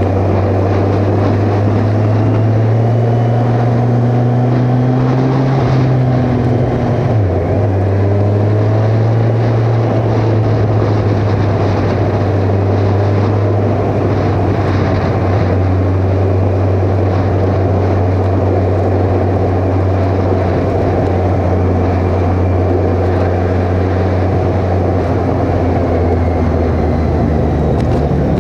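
Kawasaki Ninja 1000's inline-four engine running at steady road speed, heard from a helmet-mounted camera with wind noise. The engine note rises slightly, dips sharply for a moment about seven seconds in, then holds steady.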